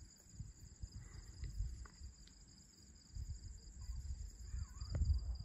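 Night insects chirping steadily in two high, finely pulsed tones, over a faint uneven low rumble.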